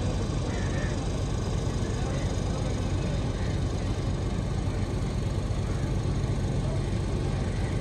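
An engine running steadily with an even low hum and no change in speed.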